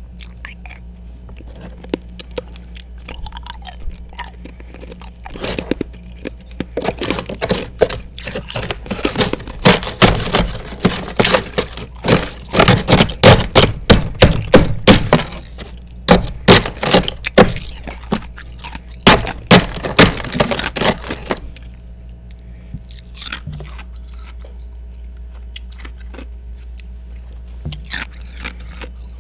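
A person biting and chewing ice close to the microphone, in loud crunches that come thick and fast for about fifteen seconds, then a few scattered crunches near the end. A steady low hum runs underneath.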